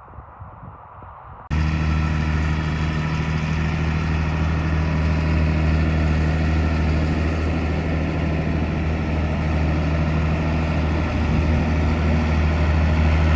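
Faint outdoor background, then about a second and a half in a diesel engine cuts in abruptly and runs loud and steady at a constant speed, as at a grain truck dumping into a bin auger.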